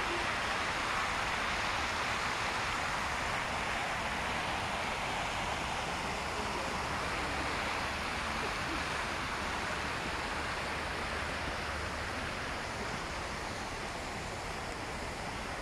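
Steady rush of splashing fountain water, with a low rumble underneath, easing off slightly toward the end.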